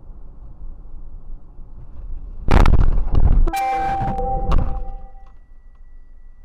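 Car collision heard from inside the dashcam car: low road and engine noise, then a sudden loud crash of the car striking an SUV that crossed in front of it, about two and a half seconds in. Several ringing tones and a second knock follow for about two seconds, then a faint steady high beep.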